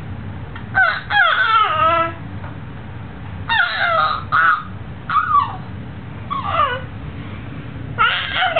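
A baby squealing: a run of about six short, high-pitched squeals, several of them falling in pitch, with brief pauses between.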